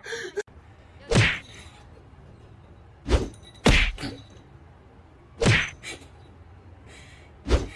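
Five loud thumps or whacks, irregularly spaced a second or two apart, each with a deep low end and a short bright crack.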